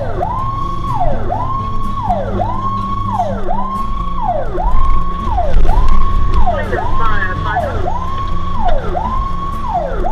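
Fire engine siren sounding while the truck drives, each cycle quickly rising, holding high for a moment, then dropping, about five cycles every four seconds, over the low rumble of the truck's engine. A second, faster warbling tone briefly joins in about two-thirds of the way through.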